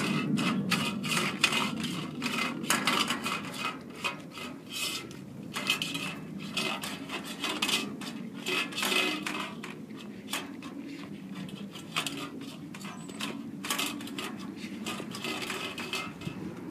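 A Doberman licking an empty stainless steel food bowl clean, its tongue and muzzle rubbing and knocking the metal in irregular clinks and scrapes, busiest in the first few seconds.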